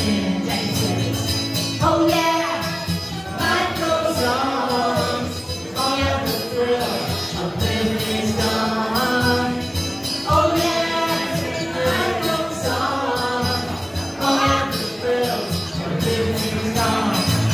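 Live acoustic music: a woman sings a song into a microphone over guitar accompaniment.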